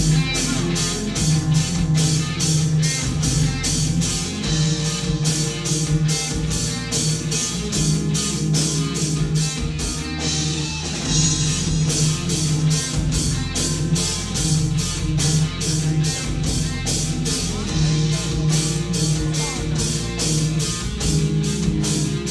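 Rock band playing an instrumental passage without vocals: electric guitar and bass over a steady, driving drum-kit beat.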